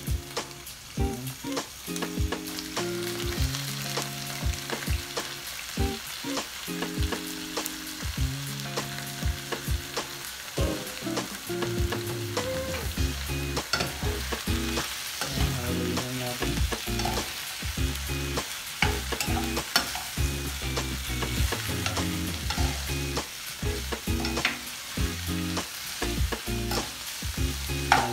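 Frog meat sizzling steadily as it fries in oil in a nonstick pan. It is stirred with a metal spoon that clicks and scrapes against the pan again and again.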